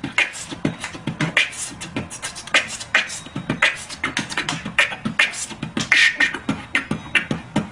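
Beatboxing: a steady mouth-made beat of low kick thumps and quick hi-hat clicks, with a louder snare-like hit about every second and a quarter.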